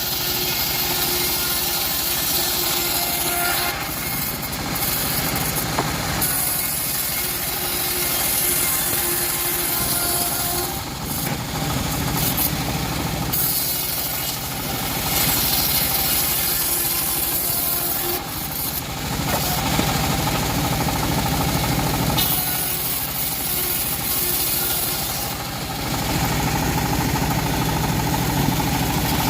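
Band sawmill running steadily as its blade cuts teak wood, the cutting hiss rising and easing again every few seconds.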